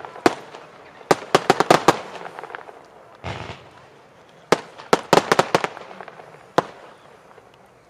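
Blackboxx Fireworks 'Schnelle Welle' 20 mm crossette battery firing. Two quick clusters of sharp pops come a few seconds apart as the crossette comets split, with single pops before and after them.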